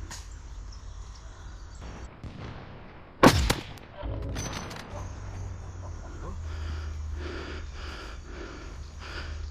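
An airsoft sniper rifle fires a single sharp shot about three seconds in, with a shorter rattling noise a second later, over a steady low rumble of wind and handling noise on the microphone.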